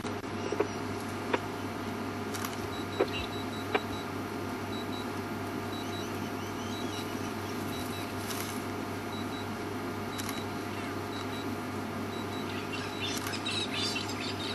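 Steady hum of the safari vehicle's running engine, with a few sharp clicks in the first few seconds and a faint high double beep repeating about once a second through the middle. The sound cuts off abruptly at the very end.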